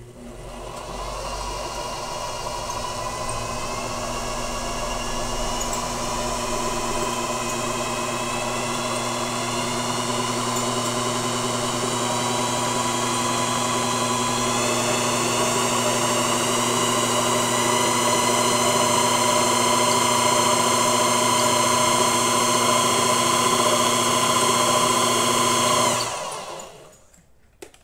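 Brushed universal (washing-machine-type) motor running at high speed, belt-driving a three-phase induction motor used as a generator to charge a battery. Its whine rises gradually in pitch and loudness as it speeds up, then it is switched off about 26 seconds in and spins down quickly. The motor is working hard under the charging load, its brush holder already smelling burnt.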